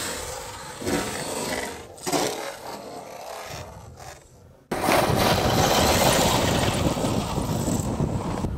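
A small electric RC truck scraping and tumbling on frozen dirt and rock as it flips over, with two louder knocks about one and two seconds in. About halfway through, a sudden loud steady rushing of wind on the microphone takes over.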